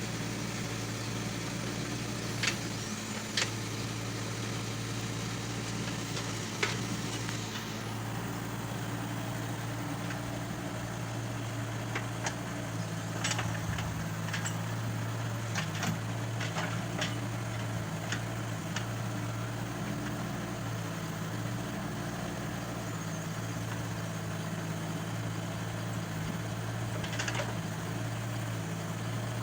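A JCB 1CX compact backhoe loader's diesel engine runs steadily while it works, with scattered sharp clicks and knocks over the top, a cluster of them in the middle.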